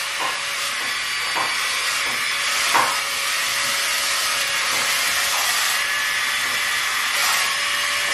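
Remote-control wall-climbing spider toy's suction fan running with a steady whirring hiss as the toy climbs the wall.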